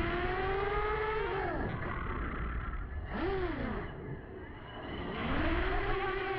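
FPV freestyle quadcopter's brushless motors whining, the pitch gliding up and down with the throttle. There is a sharp dip and rise about three seconds in, a quieter lull a second later, then a rise again near the end.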